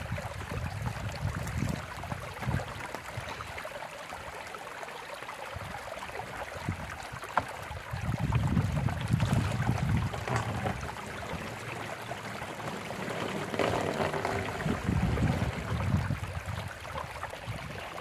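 A small spring trickling over stones, with water poured from a plastic jug into a large plastic water bottle in louder stretches around the middle and again later.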